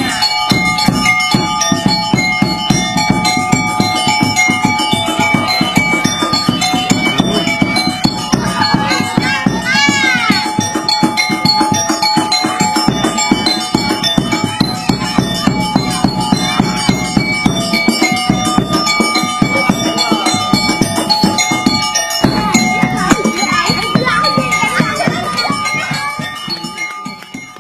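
Music with a steady beat under long held tones, fading out near the end.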